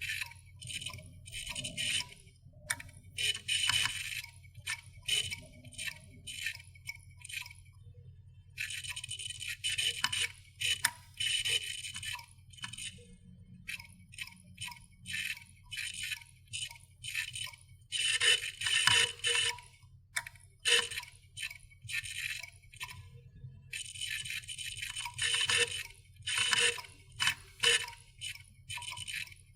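Hard disk drive clicking and chattering as its heads seek, in irregular bursts of rapid clicks about a second long, over a steady low hum.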